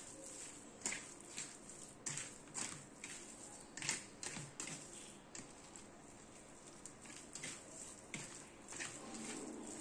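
A hand squeezing and mixing a soft potato, tomato and onion mash in a stainless steel bowl: irregular soft squelches and light taps of fingers and food against the steel, a few a second.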